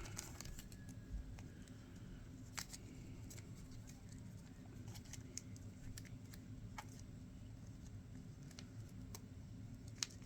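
Faint, scattered clicks and taps of small metal parts and tools being handled while working a pin out of and into an RC truck axle, over a low steady hum.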